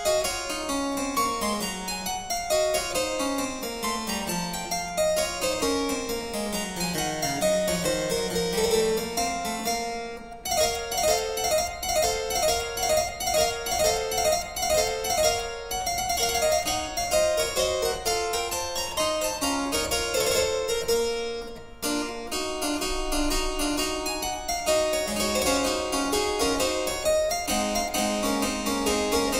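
Background keyboard music: quick runs of notes that sweep down and then back up over the first several seconds, followed by fast repeated notes.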